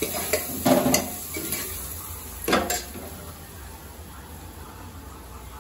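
A steel ladle stirs and scrapes a frying onion-tomato masala in an aluminium pressure cooker, clanking against the pot twice, about a second in and again at about two and a half seconds. After that comes a soft steady sizzle of the masala frying.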